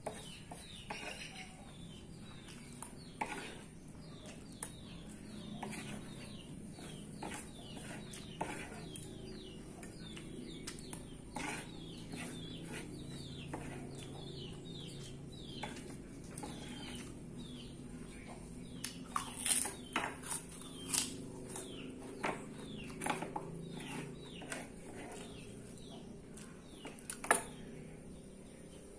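Metal spoon and fork scraping and clicking as the last of the fried rice and noodles is gathered up and eaten, with chewing, and a sharper clack near the end as the utensils are set down. Repeated short, falling chirps sound in the background throughout.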